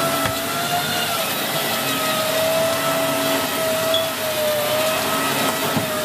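Dyson Big Ball Animal (CY23) cylinder vacuum cleaner running as its floor head is pushed over carpet, a steady motor whine that wavers slightly in pitch. About four seconds in, one short high chirp: a smoke alarm beeping because its battery is almost flat.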